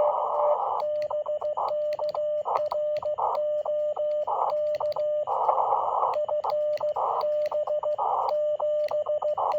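Morse code (CW) heard through a ham radio receiver: a steady tone of about 600 Hz keyed into dots and dashes, with receiver hiss swelling up in the gaps between characters.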